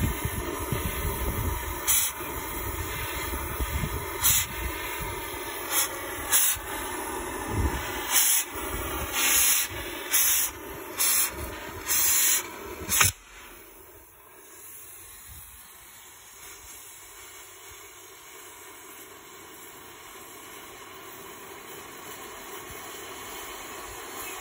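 Oxy-acetylene cutting torch hissing as it cuts a steel pipe, with a string of short, louder blasts of hiss in the first half. About halfway the sound drops suddenly to a quieter, steady flame hiss that slowly grows louder.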